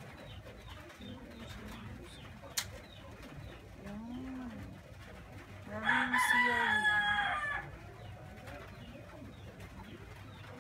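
A rooster crows once about six seconds in, a loud call lasting under two seconds. Softer cooing birds call now and then, and there is one sharp click early on.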